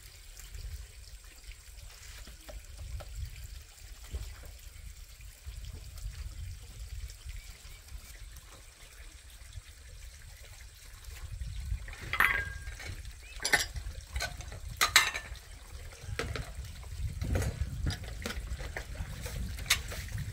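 Young dogs eating from bowls, lapping and chewing, with a few sharp knocks a little past the middle.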